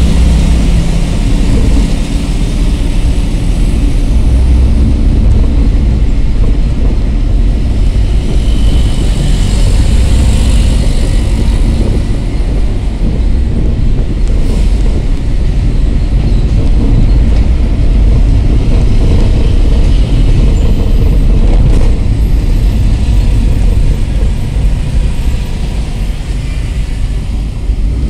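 Loud, steady engine, road and wind noise inside a moving angkot minibus, with a heavy low rumble.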